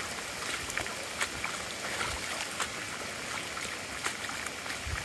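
Stormwater runoff running steadily over flooded ground after days of heavy rain, an even wash of water noise with scattered small ticks.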